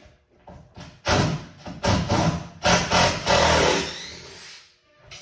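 A run of heavy knocks and clatter, starting about a second in and dying away after about three seconds, as the mezzanine's wooden framing is shifted and struck.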